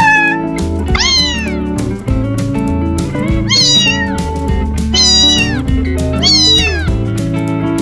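A domestic cat meowing four times, each call rising and then falling in pitch, over background music with a steady beat.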